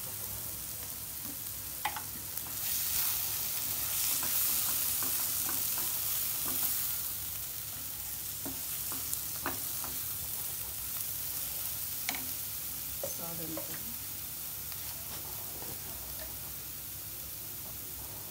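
Tomato-onion masala frying in a non-stick kadai, sizzling while a wooden spatula stirs it, with scattered clicks and scrapes of the spatula against the pan. The sizzle swells for a few seconds about three seconds in, then settles.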